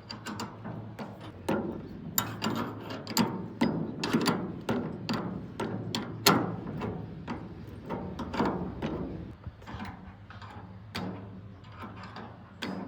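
Irregular clicks, clanks and knocks of hand tools working on mechanical parts, over a steady low hum.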